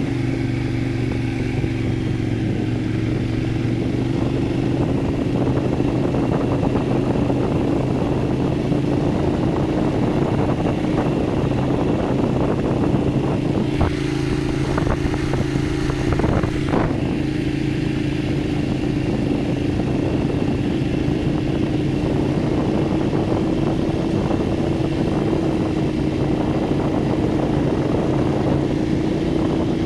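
Motorcycle engine running at a steady, even speed, heard from the rider's seat, with a few short knocks and rattles about halfway through.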